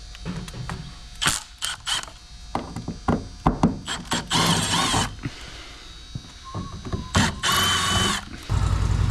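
Clicks and knocks of tool work on a truck's body trim, with two short whirring runs of a power ratchet. Near the end a motor starts and runs steadily with an even low pulse.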